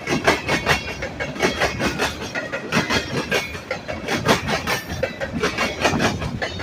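Freight train cars rolling past, their wheels clacking over rail joints in a quick, uneven rhythm of sharp clicks.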